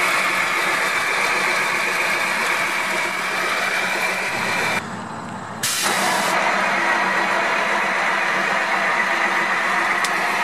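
Rollback truck's engine running steadily with a high whine, driving the bed winch that pulls a truck up onto the bed. The sound cuts out for about a second near the middle.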